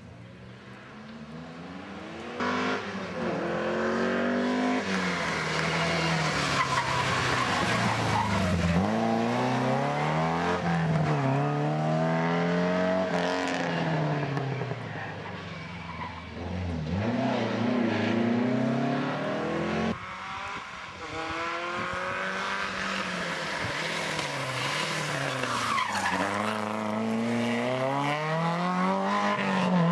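Historic rally cars, one after another, braking into and accelerating out of a tight hairpin. The engines rev up and drop back again and again through the gear changes, with tyres squealing.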